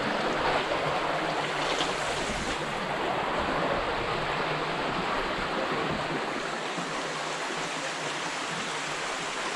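Steady rushing of a stream of water flowing through a culvert.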